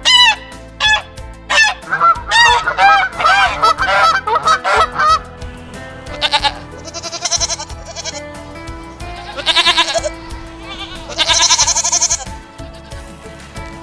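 Domestic waterfowl calling in a quick run of honks. About six seconds in, goats bleat several times, each bleat about a second long and wavering. Steady background music runs underneath.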